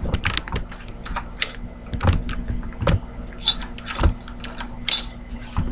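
Irregular metallic clicks and rattles from an entry door lever lockset being handled, with a few louder knocks; the inner lever assembly is loose on the door.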